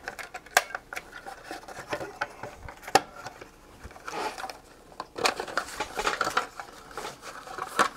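Handling noise from a Simpson 461-2 digital multimeter being slid out of its grey metal case: scattered clicks, knocks and scrapes of the case and circuit board, with a sharp knock about three seconds in.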